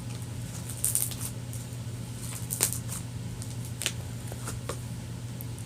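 Floam slime, foam beads mixed into white-glue slime, being squeezed and handled, giving scattered crackles and clicks over a steady low hum.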